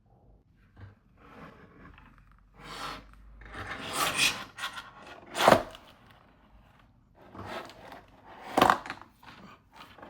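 Packaging being handled and opened by hand: a series of rubbing and scraping noises, with two sharper, louder scrapes about five and a half and eight and a half seconds in.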